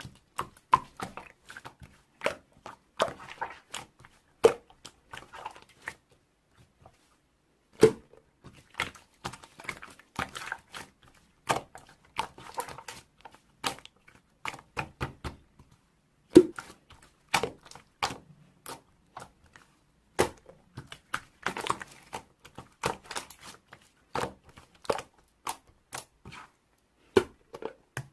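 Slime being squished, pressed and stretched by hand, giving irregular sticky clicks and small air-bubble pops, several a second, with a brief pause about six seconds in.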